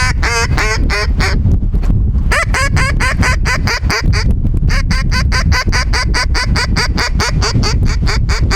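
Mallard hen quacks blown on a duck call: a short run of quacks falling in pitch at the start, then from about two seconds in a long, fast, even series of about six quacks a second. A steady low rumble runs underneath.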